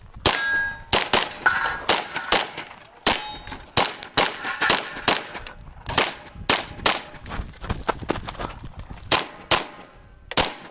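Rapid strings of 9mm Major shots from a Limcat HBAR open-class pistol, often in quick pairs, with steel targets clanging and ringing among them; the firing thins out for a moment about seven seconds in, then picks up again.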